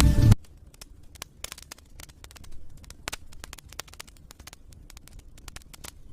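Wood fire crackling in a fireplace: irregular sharp pops and snaps over a faint low rumble, right after background music cuts off at the start.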